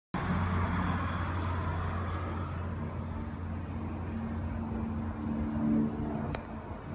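A steady low motor hum, with a single short click about six seconds in.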